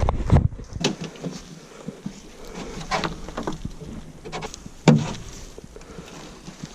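Rustling and scraping in leaf litter with a few sharp wooden knocks, the loudest about five seconds in, as a log or piece of cover is turned over.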